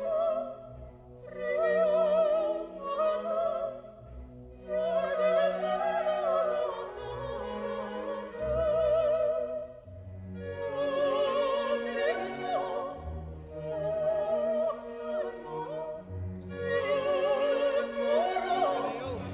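Operatic singing with orchestral accompaniment: a voice singing in long phrases with strong vibrato over sustained strings.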